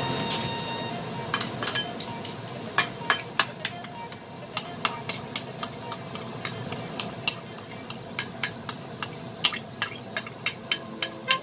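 A metal spoon clinking and scraping against a bowl as sauce is spooned out: a run of sharp, irregular clicks, coming closest together near the end.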